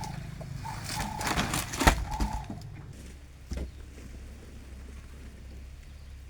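A bird calling three times in short, level notes, mixed with several sharp knocks, the loudest about two seconds in, over low steady background noise.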